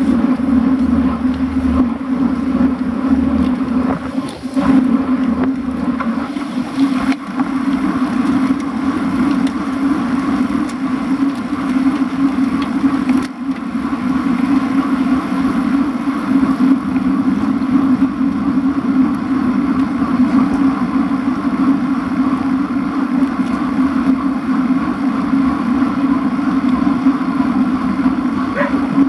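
Steady, muffled rush of wind and road noise on a bike-mounted camera riding in a group of road cyclists, with a low hum underneath for the first six seconds or so.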